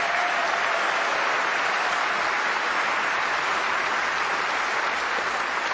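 A large hall audience applauding steadily.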